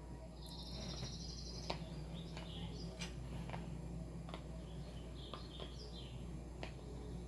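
Quiet ambience of bird-like chirps over a steady low hum: a fast trill about half a second in, then scattered short high chirps and a few faint clicks.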